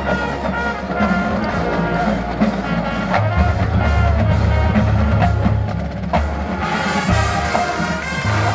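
Marching band playing: brass holding sustained chords over a drumline, with bass drums coming in strongly about three seconds in.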